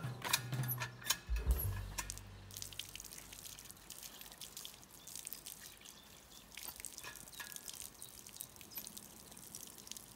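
Water splashing and dripping from the spout of an old hand-operated water pump, with a few heavy knocks from the pump in the first two seconds.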